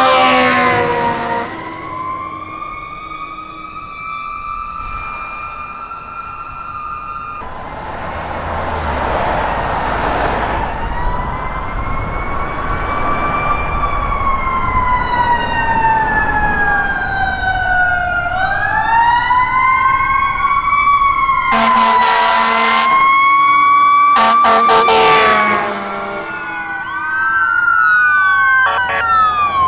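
Fire trucks and an ambulance responding with sirens wailing, the pitch slowly rising and falling, with more than one siren sweeping at once near the end. A vehicle rumbles past partway through, and two long horn blasts sound over the sirens in the second half.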